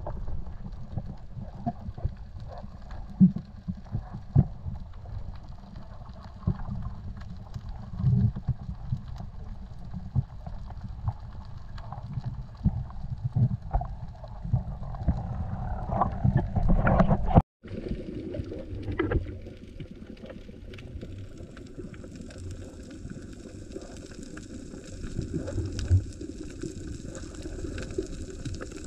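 Muffled underwater rumble picked up by a camera in a waterproof housing, with scattered knocks and clicks. The sound drops out for a moment about two-thirds of the way through and comes back with a higher hiss added.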